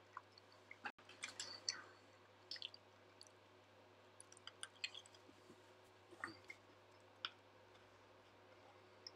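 Near silence: room tone with a faint steady hum and scattered small clicks and ticks, several bunched about a second in and a few more later on.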